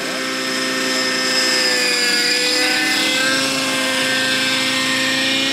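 Radio-controlled model airplane's engine running steadily in flight, its pitch sagging slightly and then climbing again.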